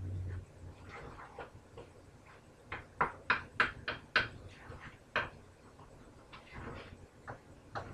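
Kitchen utensil knocking against a frying pan on the stove: a quick run of sharp knocks about three seconds in, one more about five seconds in, with quieter clatter around them.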